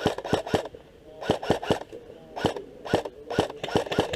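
Airsoft guns firing in quick strings of two to four sharp shots, about five a second, with short pauses between strings.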